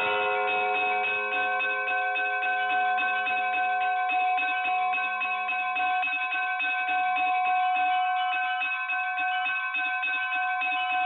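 Bells ringing in a quick, continuous peal: rapid strikes, several a second, over a steady ringing of several pitches.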